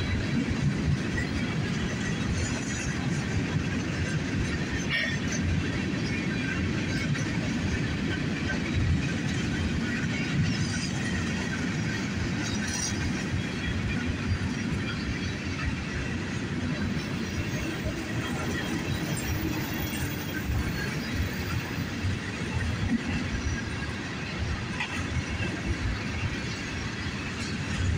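Freight train rolling past: a steady rumble of rail cars and their wheels on the track, with scattered light clicks.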